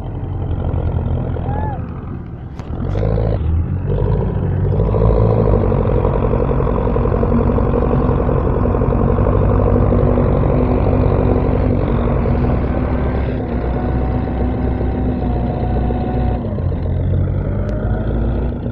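Tractor engine running loud and steady with a deep pulsing beat, picking up about four seconds in.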